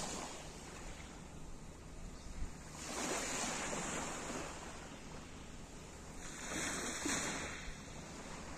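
Small sea waves breaking and washing up a pebble beach, swelling twice: about three seconds in and again about six seconds in.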